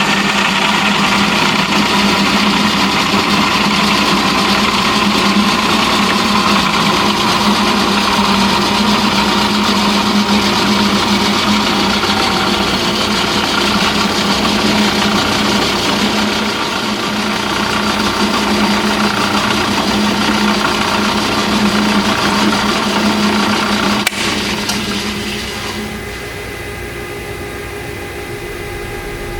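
Powermatic 2800 18-inch variable-speed drill press running steadily with a machine hum. Near the end there is a click, and over the next two seconds the running sound dies away as the press is switched off and spins down, leaving a quieter hum.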